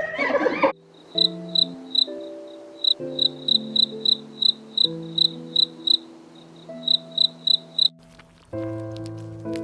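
A cricket chirping in an even rhythm, about three short chirps a second, over soft background music; the chirping stops about eight seconds in. A brief loud noisy burst comes right at the start.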